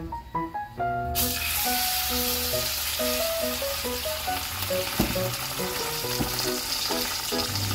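A coated mackerel fillet sizzling steadily in hot oil in a frying pan, the sizzle starting about a second in, over background music.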